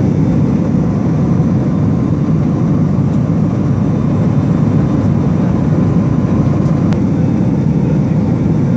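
Steady drone of an aircraft's engines heard inside the cabin, deep and unchanging.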